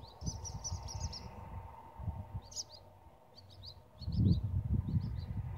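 Small birds chirping in quick repeated runs of short high notes. Under them is an irregular low rumbling noise that grows much louder about four seconds in and becomes the loudest sound.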